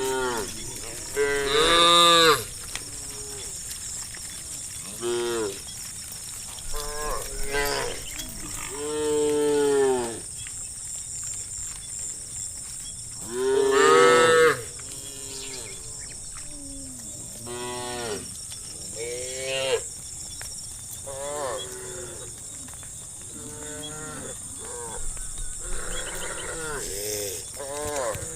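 A herd of cows mooing over and over, call after call at different pitches from several animals. The loudest calls come about two seconds in and again about halfway through.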